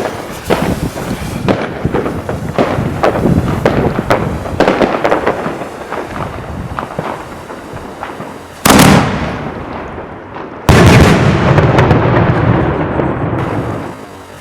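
Fireworks going off: a dense string of sharp cracks and bangs for the first eight seconds or so, then two heavy booms about two seconds apart, each dying away in a long rumbling echo.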